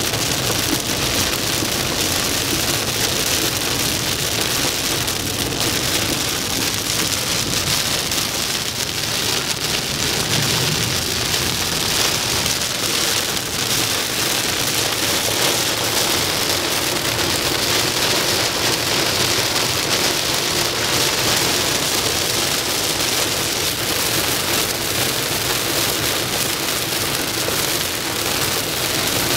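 Heavy rain pelting a moving car's windshield and roof, heard from inside the car, steady throughout and mixed with tyre hiss on the wet road.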